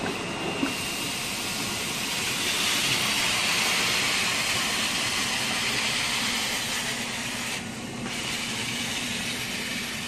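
Kärcher BD 50/50 CS walk-behind scrubber-dryer running as it is pushed across the floor: its vacuum and brush motors make a steady rushing hiss, which dips briefly a little before 8 s.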